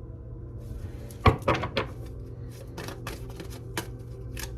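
Tarot cards being handled on a table: a few sharp taps and knocks about a second in, then a run of lighter clicks and flicks.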